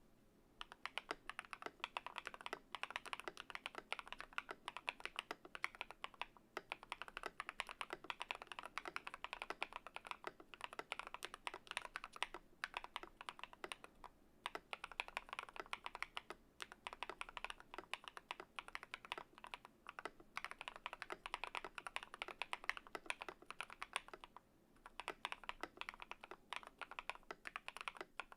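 Fast continuous typing on a Yunzii YZ75 mechanical keyboard with lubed KTT Grapefruit linear switches and foam and tape mods, a dense stream of key strokes broken by a few short pauses.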